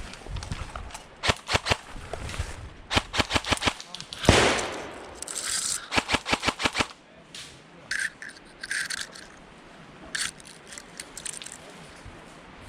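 Airsoft guns firing in short bursts of rapid shots. A single louder bang comes a little after four seconds in, and fainter scattered pops follow in the second half.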